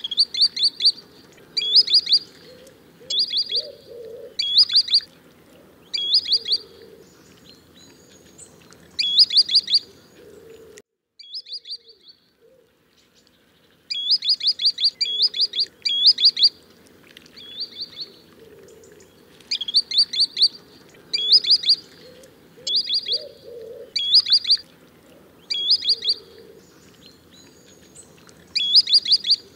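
Green sandpiper calling over and over: short bursts of three to five quick, rising whistled notes, a burst every second or so, with a silent break of about three seconds near the middle.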